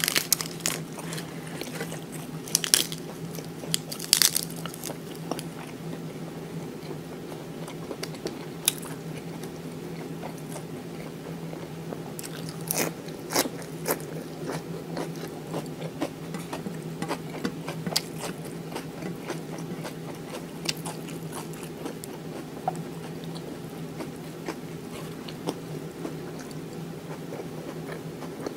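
Close-up chewing of fresh green leaf lettuce wrapped around food, with sharp wet crunches at irregular moments, loudest in the first few seconds. A steady low hum runs underneath.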